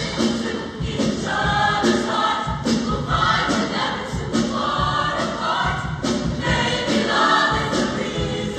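Large show choir singing in full harmony over a live backing band, with a steady beat.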